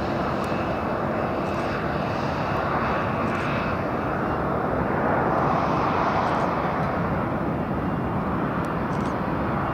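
Airliner engines: a steady rushing noise that swells a little around the middle.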